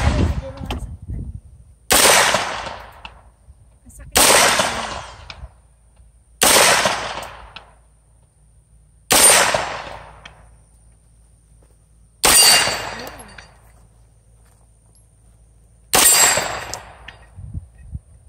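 Six single gunshots from an FM9 AR-9 style 9mm carbine, fired one at a time two to four seconds apart. Each shot cracks sharply and trails off in a short echo.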